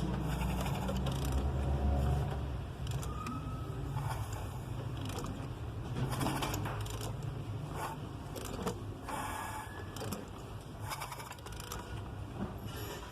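Metal tools and engine parts clinking and scraping in irregular short knocks, with a low rumble during the first two seconds.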